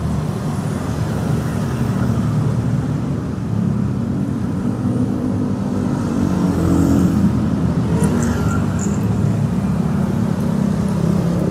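Steady rumble of road traffic, with the engine hum of passing cars and motorcycles.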